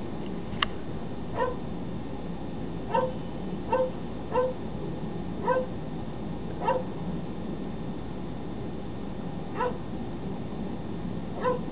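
Basset Hound barking, about ten short barks at irregular intervals with a pause of a few seconds in the middle.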